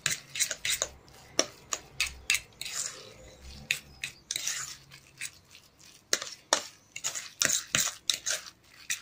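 A metal utensil scraping and clinking against a stainless steel bowl while stirring a thick chopped-herring mixture, in rapid irregular strokes.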